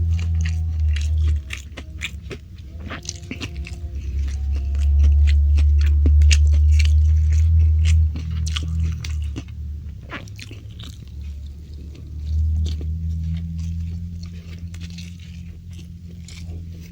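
Close-miked biting and chewing of crunchy food: many sharp, crisp crunches and clicks, over a deep low rumble that swells and fades in stretches.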